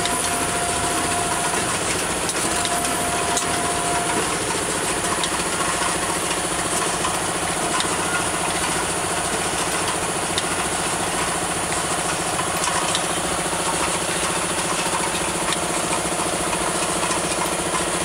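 Vial powder filling, stoppering and capping machine running: a steady mechanical hum with occasional faint ticks as the vial turntable and stations cycle.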